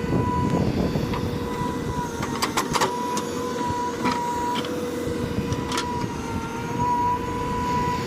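JCB 3DX backhoe loader running, a low engine rumble under a steady high whine, with a quick cluster of sharp metallic clanks a little before the middle and another single clank later.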